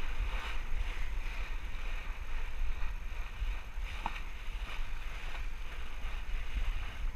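Bow wave of a sailboat under way, water rushing and splashing along the hull, with wind buffeting the microphone in a heavy, uneven rumble.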